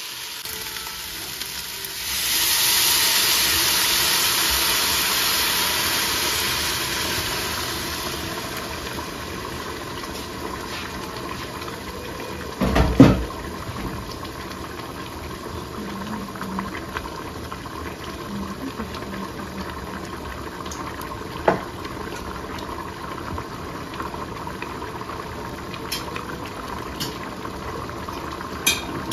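Water poured into a hot pot of fried rice and vegetables, hissing loudly for several seconds about two seconds in and fading, then the pot bubbling steadily at a boil. A single loud knock comes about halfway through.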